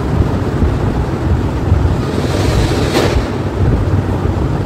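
Sari cloth rustling as it is handled and moved close to the microphone, building to a brief louder swish about three seconds in, over a steady low rumble.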